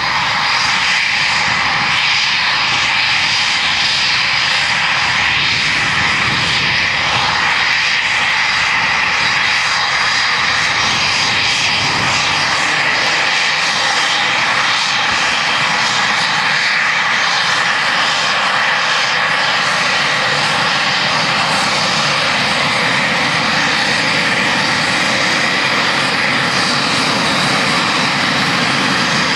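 Eurofighter Typhoon's twin EJ200 turbofan engines running at taxi power: a loud, steady jet whine and rush that holds unbroken throughout.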